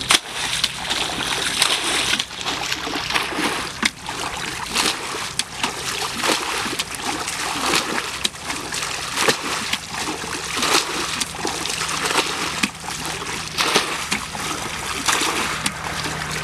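Shallow muddy water splashing and sloshing as people wade through it and grope in it by hand, with many short splashes one after another.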